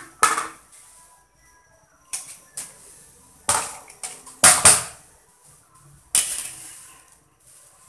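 Raw chicken pieces dropped from a plastic bowl into a large metal pot of boiling water: a string of about eight sharp splashes and knocks, each dying away quickly, the loudest near the middle.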